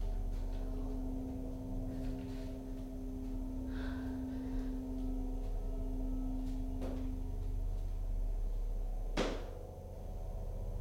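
A low, steady ominous drone with a held tone, broken by a few soft knocks and one sharp thud about nine seconds in.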